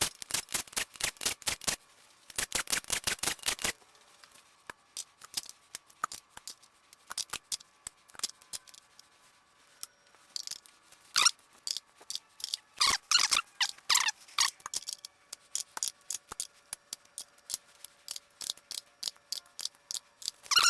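Impact wrench hammering as it backs out the rocker arm bolts on a Ford 302 V8, in two short bursts, followed by scattered clicks and metallic clinks of loosened parts.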